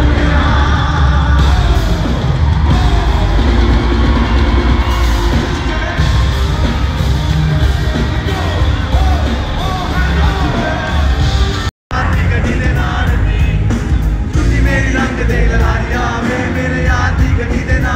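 Live concert music: a loud, bass-heavy Punjabi song with singing, and a crowd yelling along. The sound cuts out for a moment about twelve seconds in.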